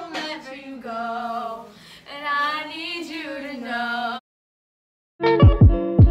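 A young woman singing held, wavering notes. It cuts off about four seconds in, and after a second of silence outro music starts with plucked guitar chords and heavy beats.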